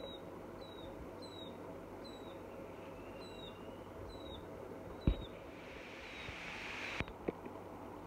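Red-wattled lapwing chick peeping: short, high peeps, each sliding down in pitch, about one every three-quarters of a second. A soft knock about five seconds in, and a hiss that builds up and stops with a click about two seconds later.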